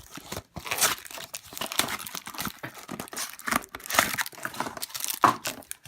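Trading card packaging being torn open and handled, with irregular crinkling and tearing of the wrappers.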